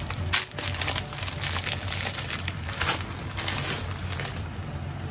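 Plastic food packaging crinkling in several short bursts as a salt packet and the spaghetti's plastic bag are handled, over a low steady hum.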